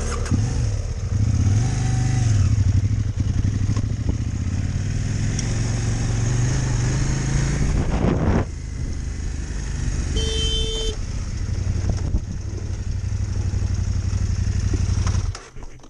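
Adventure motorcycle engine running under way, its pitch rising and falling with the throttle. A short, high tone sounds about ten seconds in.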